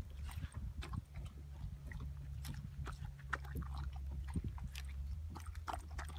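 Wirehaired vizsla chewing and biting watermelon flesh out of the rind, a quick irregular run of clicks and smacks over a steady low hum.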